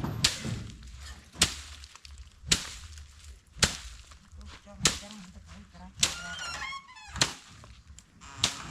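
Sharp blows struck at a steady pace, about one a second, eight in all. A bird calls briefly between strikes about six to seven seconds in.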